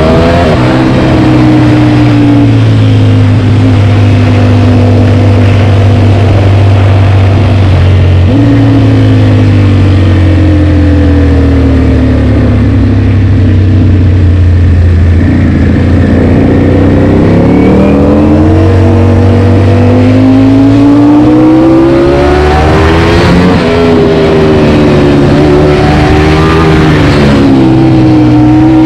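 Ducati Panigale V4's V4 engine through an Akrapovic GP exhaust, heard from the saddle while riding. The revs ease off and hold through the middle, then climb in hard pulls near the end, each broken by a sharp drop at an upshift.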